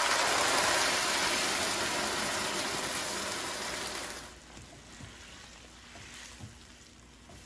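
Tomato purée hitting hot butter and oil in a nonstick pan, sizzling loudly and spattering. About four seconds in the sizzle dies down to a quieter bubbling, with a few soft knocks as it is stirred.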